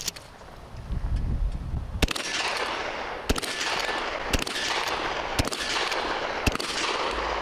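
Shotgun fired five times in a steady string, about one shot a second, each report trailing off before the next.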